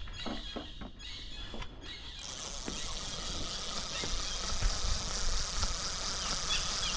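Spinning fishing reel being cranked, a steady whirr with a few light clicks, after a few handling knocks in the first two seconds.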